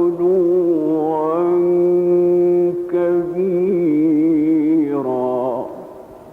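A man's voice chanting Quranic verse in the melodic, drawn-out mujawwad style, holding long ornamented notes with a wavering pitch. After a short breath break, the phrase closes about five and a half seconds in and the voice fades away.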